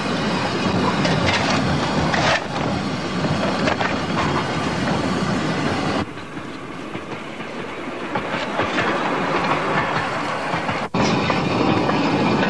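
A replica early steam locomotive of the Rainhill-trials type running on the track, with a continuous rail clatter and steam noise. The sound drops abruptly quieter about six seconds in and comes back louder near eleven seconds.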